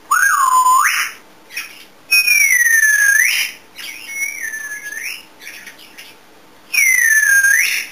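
African grey parrot whistling four times, each whistle dipping in pitch and then sweeping sharply upward; the third is shorter and softer than the others.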